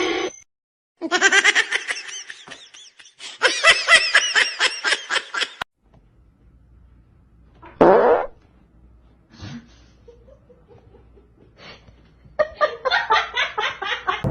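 Human laughter in three long runs of quick, pitched bursts, with a short loud outburst in between.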